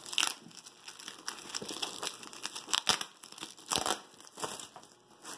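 Clear plastic wrap crinkling and tearing as it is pulled off a fabric carrying bag, in irregular crackles with a few louder, sharper rips.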